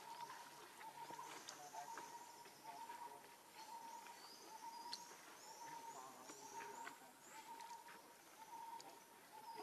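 Faint forest ambience: a steady high note repeating on and off, with a run of quick high bird chirps through the middle.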